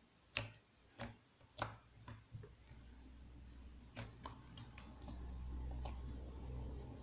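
Cloud slime being handled and poked, giving sharp clicking pops about once every half second to second at first, then a few sparser pops over a steady low handling noise.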